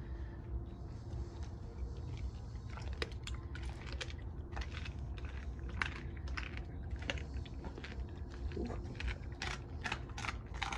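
Doberman crunching the bones of a raw whole squirrel: a string of sharp, irregular cracks that come thicker near the end, over a steady low hum.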